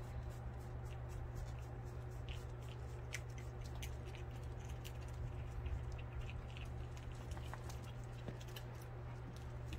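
Several dogs moving about on asphalt and being handled, giving many scattered light clicks and rustles, over a steady low hum.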